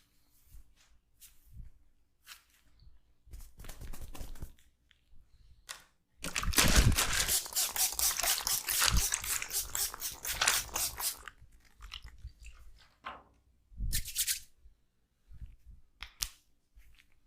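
Close-miked massage hands working on hair and scalp. Scattered short rubs and crackles come first, then about five seconds of fast, dense rubbing and crackling from about six seconds in, then a few single strokes.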